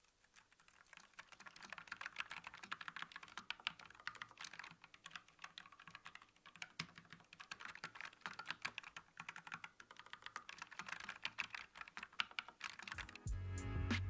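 Fast typing on a JamesDonkey S2 low-profile mechanical keyboard with an aluminium alloy case: a dense, continuous run of keystroke clicks. About a second before the end, music with a heavy bass beat comes in.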